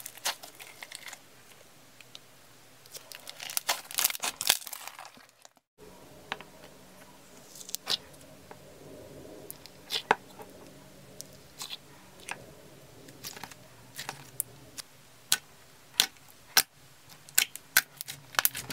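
Slime being worked by hand. First, thick yellow slime is pulled and torn apart with a run of crackling, tearing sounds. After a brief break, clear slime is pressed and folded between the fingers, giving sharp, separate clicking pops about once a second over a faint steady hum.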